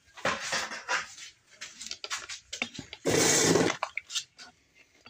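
Clear coat being sprayed in short hissing bursts. The longest and loudest is a steady hiss of under a second, about three seconds in.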